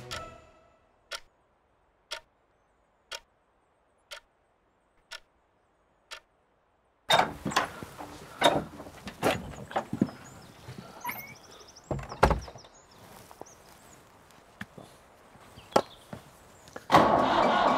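About six sharp ticks, one a second like a clock, over near silence. Then a wooden door opens and shuts with latch clicks, knocks and a dull thud, with footsteps. Near the end a vehicle engine starts and runs steadily.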